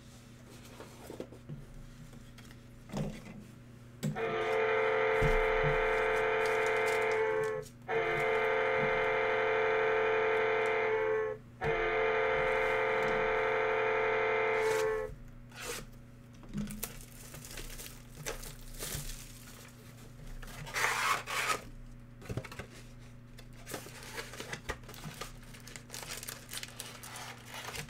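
Three long, steady electronic tones, each about three and a half seconds with short gaps between them, are the loudest part. Around them come rustling, crinkling and tearing as the plastic shrink wrap is cut and pulled off a Panini Mosaic football hobby box and the box is opened.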